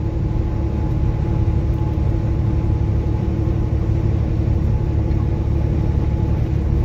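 Truck engine and road noise droning steadily inside the cab at highway speed, with a constant hum running through it.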